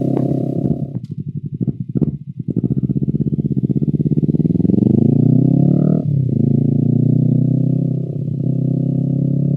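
Honda CBR250RR parallel-twin engine through an Akrapovic exhaust, ridden on the road. It pulses unevenly for about a second and a half, then accelerates with the pitch climbing steadily until a sudden drop at an upshift about six seconds in, after which it runs steady.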